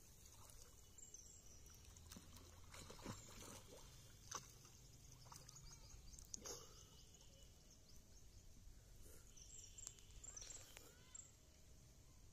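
Near silence: faint outdoor ambience over open water, with a few soft ticks scattered through it.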